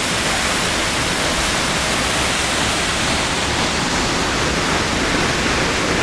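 Steady rushing roar of a mountain waterfall and river, loud and unbroken.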